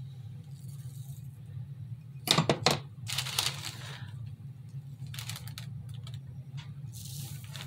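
A small glass jar set down on a tabletop: a quick cluster of three sharp clinks a little over two seconds in. Short hissing noises and a few faint handling ticks follow, over a steady low hum.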